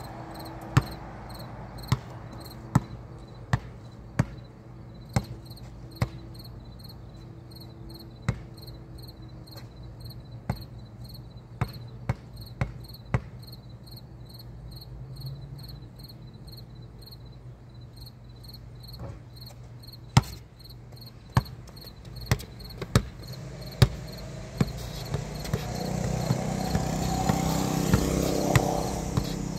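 Basketball bouncing on a concrete court: sharp single bounces in runs about one to two a second, with a long pause in the middle, over steady, evenly pulsing insect chirping. A vehicle swells past near the end.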